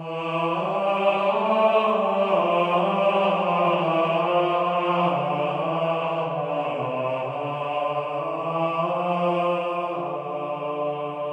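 Background music of slow, held, chant-like tones over a steady low drone. It starts abruptly and begins to fade near the end.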